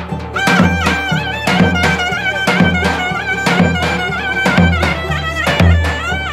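Turkish folk halay tune: a clarinet plays a wavering, ornamented melody, with a cümbüş plucked alongside, over a heavy drum beat of about two strokes a second.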